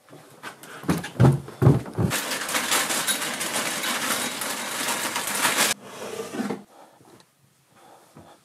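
Four heavy footsteps thudding down carpeted stairs, then a plastic cereal bag crinkling and rustling loudly for a few seconds as cereal is poured into a bowl, cutting off suddenly, followed by one soft thud.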